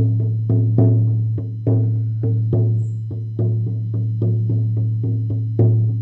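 14-inch shamanic frame drum with a thick fallow-deerskin head on an ash frame, beaten with a firm beater in a steady rhythm of about three strokes a second, some louder than others. Each stroke leaves a deep, ringing boom that carries on into the next; the thick skin gives the depth.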